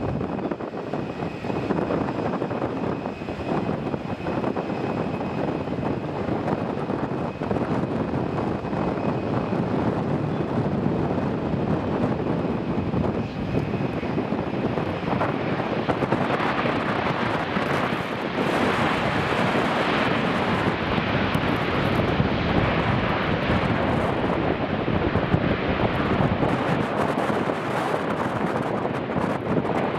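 Boeing 737-800's CFM56 turbofan engines on final approach: a steady jet rumble with a thin whine. From about halfway through it grows louder and harsher as the jet lands and slows on the runway.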